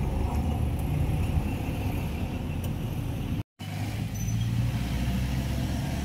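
Motor vehicle engines running near the crossing, a steady low rumble of traffic. It drops out completely for a moment about three and a half seconds in.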